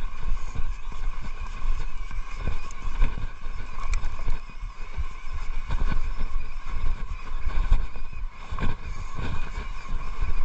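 Mountain bike riding fast down a dirt trail: tyres rumbling over dirt and roots, with the bike knocking and rattling over bumps, under a steady whine.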